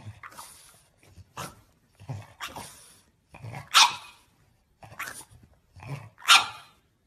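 A French bulldog giving a run of short barks and grumbles, about one a second, to beg for a piece of banana held out to it. The two loudest barks come a little past the middle and near the end.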